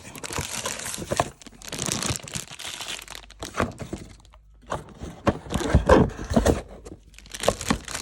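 Crinkling and rustling of packaging being handled, with scattered sharp clicks and knocks. There is a short lull about halfway through.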